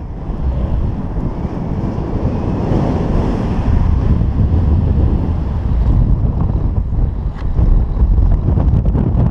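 Wind rushing and buffeting against a GoPro's microphone in paraglider flight, a steady low rumble with heavier gusts in the last few seconds.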